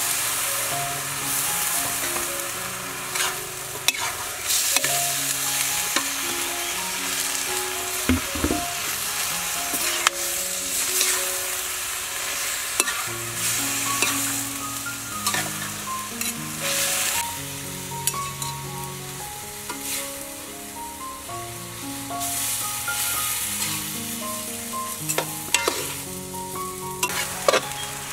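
Noodles, meat and Chinese broccoli sizzling in a hot wok as they are stir-fried. A metal spatula and ladle scrape and clack against the wok now and then as the food is tossed.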